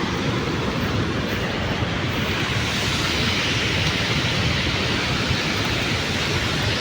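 Steady, unbroken rush of a large waterfall, Chitrakote Falls running full in the monsoon rains.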